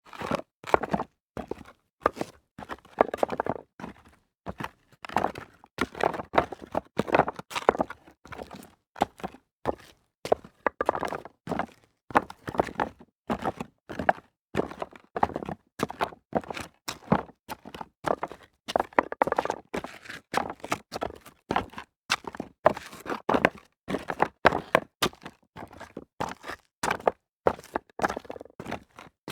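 Footsteps crunching over loose rock debris, steady walking with the gravelly scrunch and clatter of stones shifting underfoot at each step.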